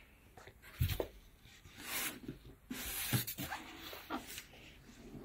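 Cardboard shipping carton being opened by hand: the flaps rustle and scrape as they are lifted and folded back, with a few dull thumps about a second in and again about three seconds in.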